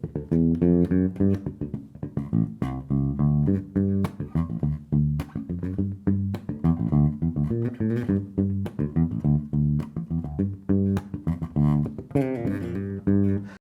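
Solo electric bass guitar playing a rhythmic line that mixes pitched notes with sharp, percussive clicks from left-hand-muted strings. It cuts off abruptly at the end.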